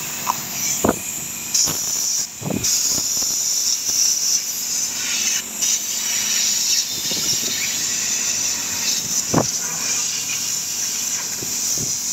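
Compressed air hissing from a blow nozzle aimed at a metal licence plate, blowing off blistered paint. A few short knocks sound through the hiss, about one, two and a half, and nine seconds in.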